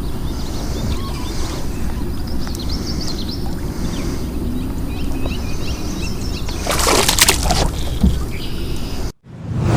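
Outdoor water ambience from a small boat on a swamp lake: a steady low rumble with water sloshing and small birds chirping, and a louder rushing splash about seven seconds in. The sound cuts off abruptly near the end and a whoosh rises in its place.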